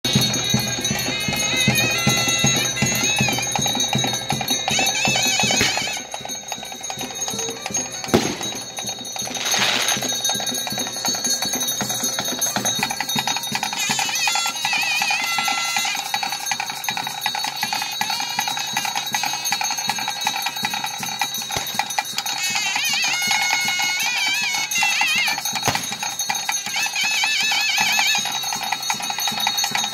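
Ritual music: drums and ringing bells keep a steady rhythm, while a wind instrument plays a wavering melody in short phrases. A single loud bang comes about eight seconds in, followed by a short hiss.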